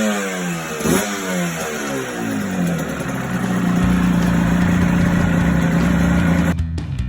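Freshly rebuilt Yamaha TZR250 3MA two-stroke reverse-cylinder parallel twin, blipped once about a second in, its revs rising sharply and falling back before it settles into a steady idle.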